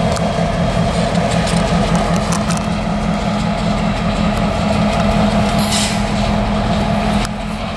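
EMD 16-645 two-stroke diesel of a BNSF GP38-2 switcher locomotive running steadily at low speed, with a brief high hiss of air about six seconds in.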